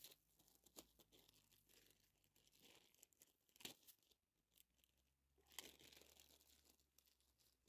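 Near silence, with a few faint rustles and soft clicks, one click about halfway through and a longer rustle a couple of seconds later.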